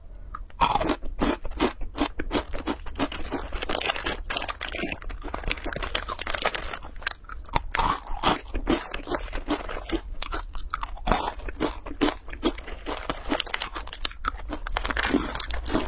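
Crunchy instant-noodle snack balls (ramen balls) being bitten and chewed close to the microphone: a dense, irregular run of sharp crackly crunches.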